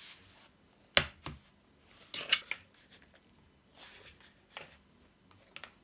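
Hand kneading a crumbly dough with grated Parmesan in a plastic measuring jug: rough rustling and squeezing in short bursts, loudest around two seconds in. A sharp knock comes about a second in.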